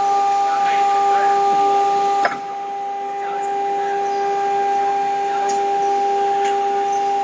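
CNC router's rotary tool changer working through a tool change: steady machine whine over a hiss, with one sharp clunk about two seconds in, after which the hiss drops away.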